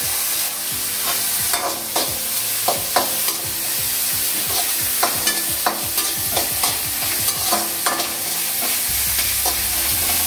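Sliced onions, crushed bird's eye chillies and curry leaves sizzling in hot coconut oil in an aluminium kadai, with a steady frying hiss. Many short sharp clicks and scrapes of a utensil against metal run through it.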